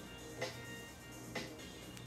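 Faint background music with a soft, regular beat about once a second.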